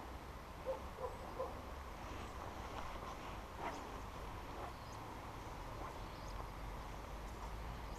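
Spinning reel being wound while a hooked trout bends the rod, under a low wind rumble on the microphone. Three short faint chirps come about a second in, and a single click near the middle.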